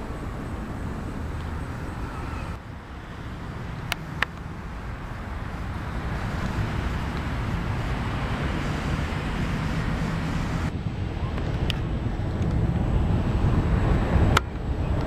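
Wind rumbling on an outdoor camcorder microphone, a steady low noise that grows a little louder toward the end, with a few sharp clicks.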